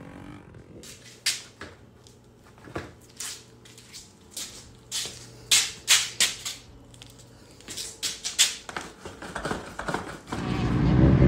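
A string of sharp, irregular clicks and knocks in a small room, over a faint steady hum. Near the end a loud, steady rumble starts suddenly.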